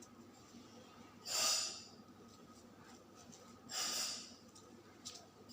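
Two breaths close to the microphone, each about half a second long and a couple of seconds apart, over a low background hiss.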